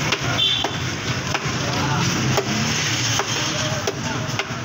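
Busy street-food stall: background voices and general bustle, with sharp clinks of a serving spoon against plates as rice is dished out.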